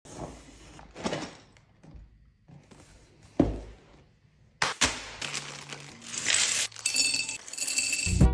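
Hard plastic LEGO pieces clinking and clattering: a few separate knocks, then a busier rattle from about halfway through.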